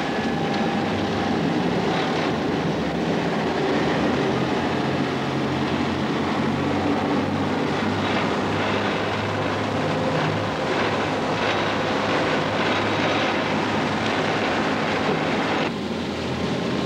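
Small rescue boat's engine running steadily under way, mixed with wind and rushing water. The sound changes abruptly near the end.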